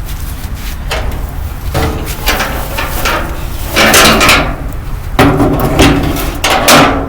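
A metal part being fitted back onto a Craftsman walk-behind lawn mower: repeated metallic clanks and scraping with some ringing, loudest about four seconds in and again near the end.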